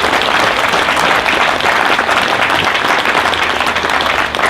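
Audience applauding steadily, many hands clapping, for a retired Marine sergeant major who has just stood up when asked.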